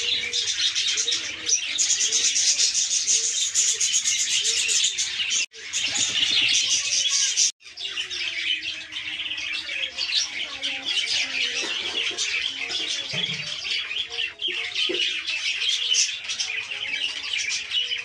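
A crowd of caged budgerigars and other small aviary birds chirping and chattering constantly, many calls overlapping. The sound cuts out very briefly twice, near the middle.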